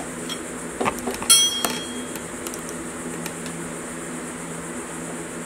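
A few short metal clinks of a hand tool against the engine's iron parts, the loudest a ringing clink just over a second in, over a steady low hum.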